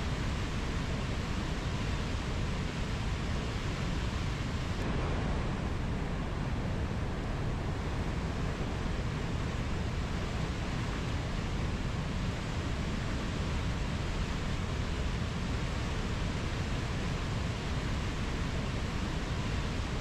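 Fast mountain river rushing over white-water rapids: a steady, even rush of water.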